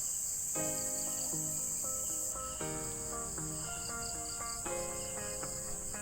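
Gentle background music of changing melodic notes over a steady, high-pitched drone of insects such as crickets.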